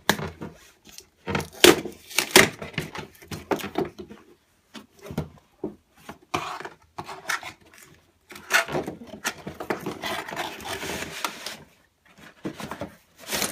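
A toy playset box being opened and unpacked by hand: scattered knocks and clicks of cardboard and plastic pieces, with stretches of packaging rustling.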